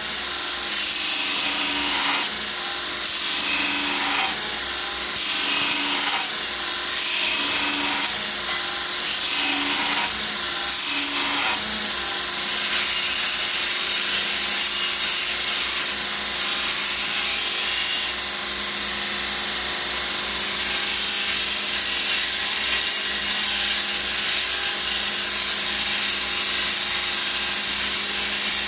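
Grizzly 2x42 belt grinder grinding a high-carbon steel drift, the steel pressed onto the running belt. It comes in repeated passes about every second and a half for the first dozen seconds, then settles into steady grinding.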